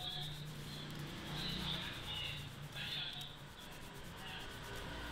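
Fingers rubbing and kneading wet hair and scalp during a hair-wash massage, a wet rubbing that comes in strokes about every second and a half.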